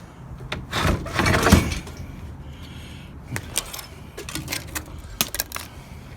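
A loud rattling clatter about a second in, lasting under a second, then a scattering of sharp knocks and clicks.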